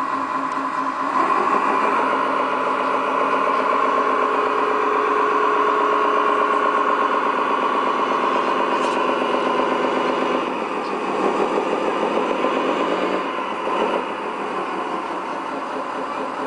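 Electronic V8 engine sound from the Tamiya Scania R620 RC truck's sound module, played through its small speaker, idling steadily. It gets a little louder about a second in and drops back about ten seconds in.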